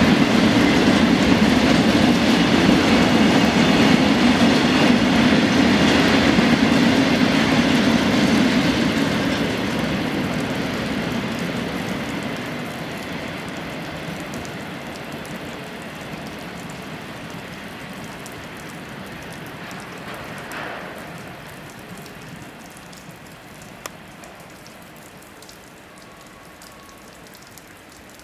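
A freight train of tank cars rolls past with a steady rumble and rail clatter, then slowly fades away over the second half, leaving a faint hiss.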